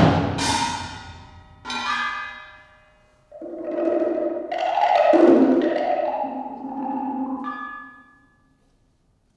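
Solo multi-percussion played with mallets: a few separate strokes on drums and blocks, spaced out, each left to ring and decay. The last one dies away a little before the end.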